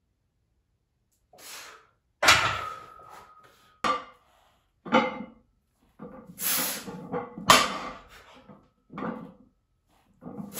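Loaded barbell with iron plates knocking and clanking down several times during heavy deadlift reps. The loudest knock, about two seconds in, leaves a metallic ring hanging for more than a second.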